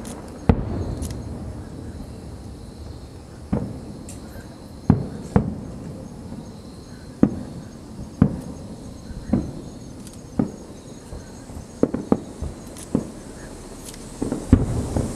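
Aerial fireworks shells bursting, about a dozen irregular booms, each with a short echoing tail, some coming in quick pairs. Insects chirp steadily and faintly underneath.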